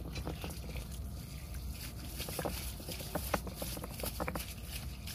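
Water running from a hose onto rocks, with short scrapes and knocks as hands rub and turn the stones.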